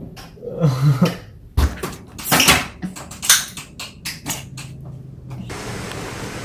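A short vocal sound, then a thump about a second and a half in and a run of quick rustles and knocks from a playful scuffle close to the microphone. Near the end it cuts to the steady hum of an airliner cabin.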